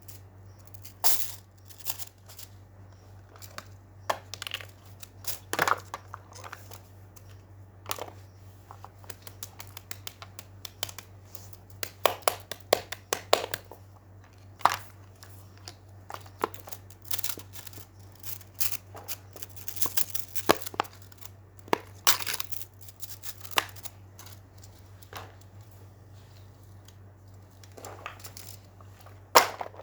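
Small objects handled at close range: irregular clicks and short crinkly rustles, some sharper than others, over a steady low hum.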